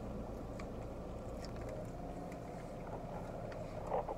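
Steady low hum of a car idling, heard inside the cabin, with faint chewing sounds from a mouthful of sandwich.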